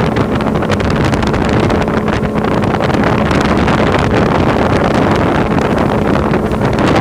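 Small boat's outboard motor running steadily under way, a constant low hum, with wind buffeting the microphone.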